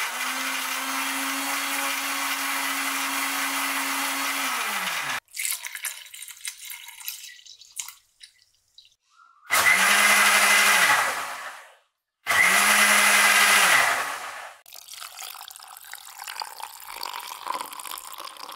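Electric blender blending a banana milkshake in three runs: a long steady run of about five seconds, then two shorter, louder bursts. The motor's hum drops in pitch as it winds down after each stop. Quieter clatter and handling sounds come between and after the runs.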